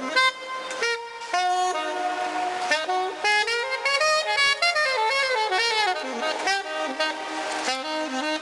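A 1927 Conn New Wonder saxophone, a low-pitch horn, played solo: a melody of held and moving notes, with short breaks between phrases.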